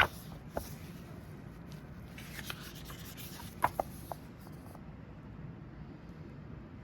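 Paper and card being handled: short rustles and brushing, with a few sharp light clicks in the first four seconds. After that it settles to a faint steady background hum.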